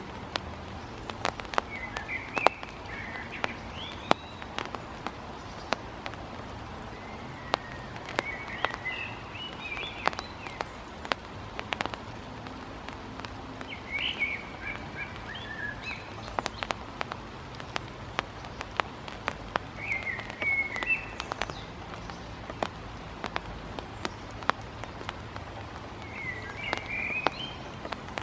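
Sharp, irregular taps of a great tit pecking at and striking a large hawk-moth caterpillar on sandy ground. Short chirping bird phrases come about every six seconds, over a steady low hum.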